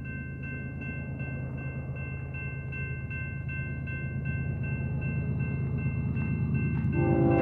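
Grade crossing bell ringing steadily, about two to three strikes a second, over the low rumble of an approaching Union Pacific freight train's diesel locomotives that grows louder. Near the end the lead locomotive's air horn starts to blow.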